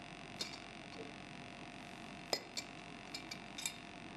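A few light, sharp clicks and taps of lab glassware and equipment being handled, one near the start and a quick cluster in the second half, over a faint steady hum.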